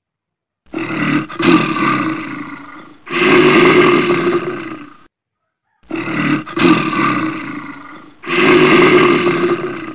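Loud, rasping 'orgh' snore sound effect dubbed over a sleeping cat. It comes in two pairs, each a shorter burst followed by a longer one that fades, with a silent gap of under a second between the pairs.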